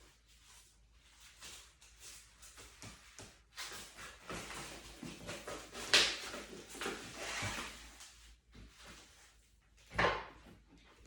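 Blood-pressure cuff and hand pump being handled: rustling and scuffing, with two sharp clicks or knocks, one about halfway through and one near the end.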